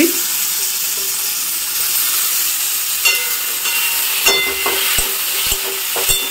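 Onion and ginger-garlic masala, with chopped tomatoes just added, sizzling steadily in hot oil in a pan. A spatula stirs through it, scraping the pan a few times.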